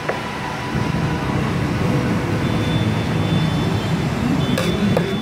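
Steady low rumbling background noise, with a few sharp metallic clinks of a metal spatula against a wok near the start and near the end.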